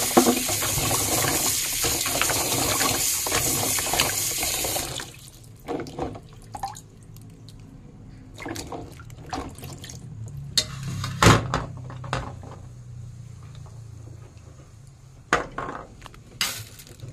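Water running and splashing in a sink for about five seconds while bunches of pea eggplants are washed by hand in a plastic basin. The water cuts off abruptly, followed by scattered splashes, drips and light knocks as the wet bunches are handled and set down. The sharpest knock comes about eleven seconds in.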